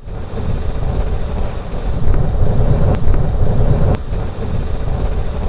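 Wind buffeting the microphone in gusts over the wash of breaking surf, with two sharp clicks about three and four seconds in.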